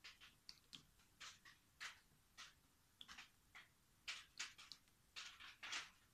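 Faint, irregular soft rustles and taps, two or three a second, from hands handling the edge of a wet acrylic-poured canvas.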